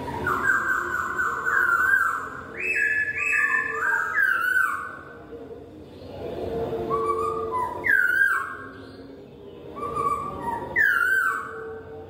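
Poksay hongkong (black-throated laughingthrush) singing loud whistled phrases that rise and fall quickly, in three bursts with short pauses about five and nine seconds in.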